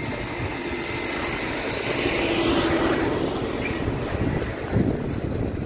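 A motor vehicle running, a steady hum with a broad whoosh that swells up and fades away over the middle seconds.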